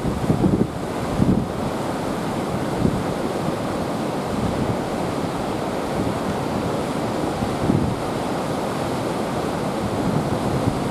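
Heavy typhoon swell surf, waves breaking and washing in a steady roar. Wind buffets the microphone in gusts near the start and again about three-quarters of the way through.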